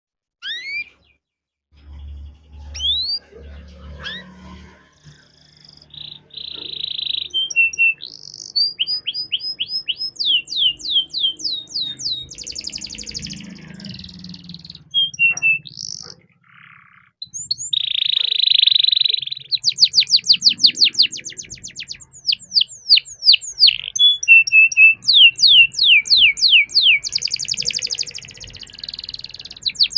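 Domestic canary singing: a few sharp rising chirps, then long, fast rolls of rapidly repeated notes broken by short buzzy, harsh phrases.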